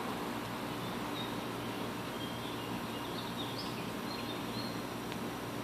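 Steady outdoor background hiss with a faint hum under it, and a few faint, high bird chirps in the middle.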